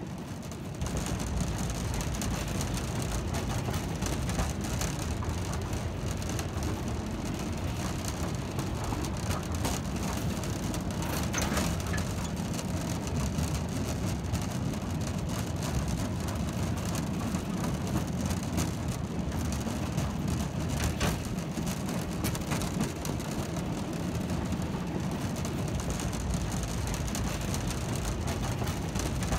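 Narrow-gauge slate wagons freewheeling downhill under gravity with no locomotive: a steady rumble and rattle of steel wheels on the rails, with an occasional click.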